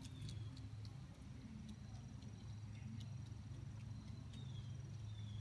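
Quiet backyard ambience: a steady low hum under a faint, steady high insect drone, with a few faint short falling chirps near the end.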